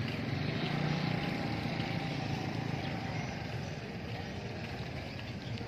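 Small motor scooter engines running at low speed as they ride past, a steady low hum that is loudest about a second in, over general street noise.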